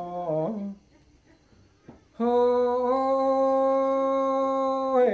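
A man's singing voice ends a phrase. After about a second and a half of near silence with one faint click, it takes up a single long sung note held steady in pitch for nearly three seconds.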